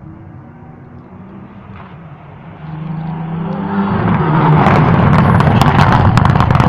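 Rally car approaching and passing at speed, its engine note rising and growing loud from about four seconds in, with a rapid run of sharp pops and cracks as it goes by.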